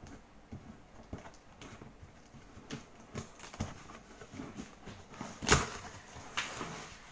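Cardboard packaging being handled as a large box is unpacked: scattered rustles and light taps, with a sharp knock about five and a half seconds in, the loudest sound, and a smaller one about a second later.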